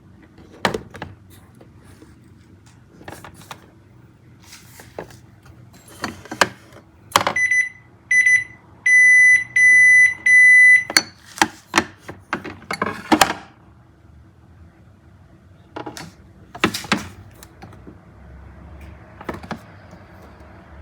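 Refrigerator door-open alarm beeping, two short beeps then three longer ones: the door has been left open. Scattered knocks and clatter of things being handled sound around it.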